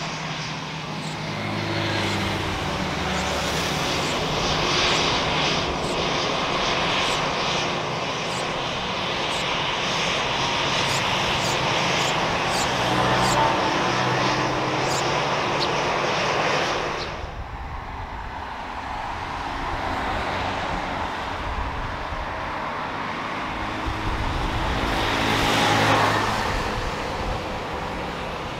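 Jet engines of an Airbus A320 running loud and steady as it rolls along the runway. About two-thirds of the way through, the sound cuts off suddenly and gives way to the quieter engine sound of a Boeing 737 MAX 8 with CFM LEAP-1B engines on the runway, swelling and then easing off near the end.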